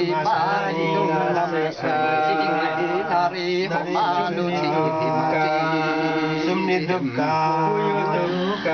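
A man chanting a ritual recitation in long held notes, pausing briefly for breath a few times.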